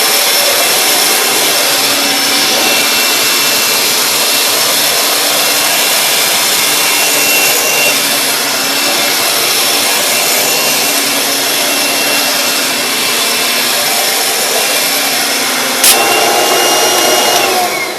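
Kirby Sentria 2 upright vacuum cleaner running steadily with a motor whine as it is pushed over carpet. A sharp click comes near the end, and just after it the motor's pitch starts to fall as it spins down.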